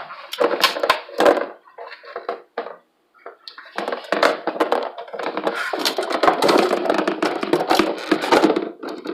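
Hard plastic parts of a kitchen spiralizer being handled: a few clicks and knocks, then from about three and a half seconds in several seconds of continuous clattering and rustling.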